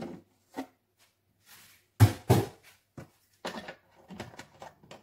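Knocks and clinks of kitchen things handled on a worktop, a plastic milk bottle and a tablespoon being set down, with two louder knocks about two seconds in and smaller taps after.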